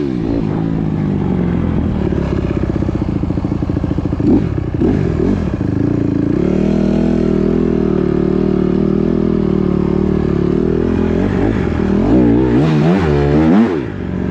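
Four-stroke dirt bike engine running, holding a steady drone for several seconds, with a quick rise and fall of revs a little after four seconds in and two more quick rev blips near the end.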